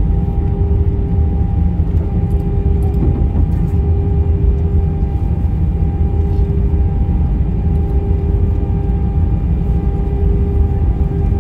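Cabin noise of an Airbus A319-112 rolling out on the runway after touchdown: a loud, steady rumble of wheels and airflow with a steady whine from its CFM56 engines.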